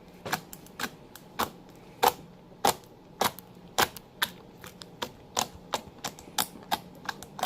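Glitter slime being poked and squeezed by hand, giving a series of sharp clicks and pops, about two a second at an uneven pace.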